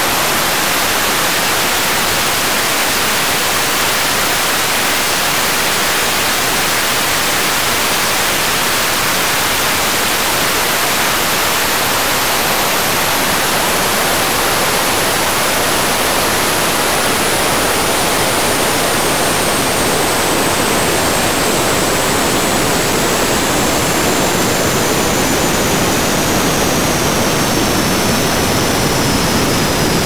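Jet engine running with a steady, loud rushing roar. A thin high whine climbs briefly at the start, then falls slowly in pitch. A deeper rumble builds toward the end.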